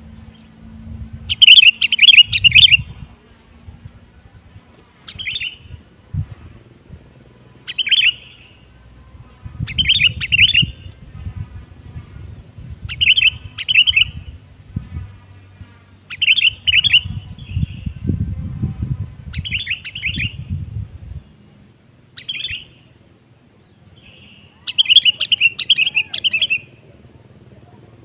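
Sooty-headed bulbul giving short, bubbly chirping phrases, about nine of them spaced two to three seconds apart, the loudest near the start and near the end. A low rumble comes and goes beneath them.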